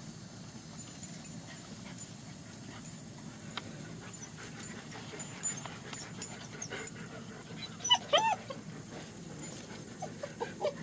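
German Shepherd puppies playing: a burst of high, wavering yelps and whimpers about eight seconds in, then a few shorter squeaks near the end.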